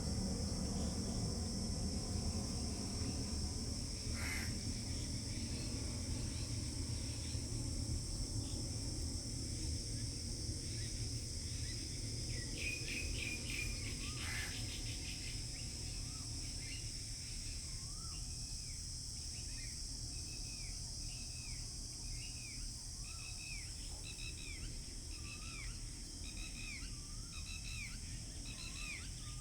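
Rural pondside ambience: a steady high drone of insects over a low rumble, with a bird calling. A quick run of chirps comes about halfway through, then the bird repeats a short dipping call roughly once a second.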